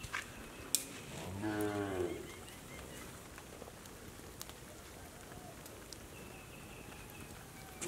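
A single low, drawn-out call falling in pitch, lasting under a second, about a second and a half in. It sits over a faint outdoor background with a few sharp clicks.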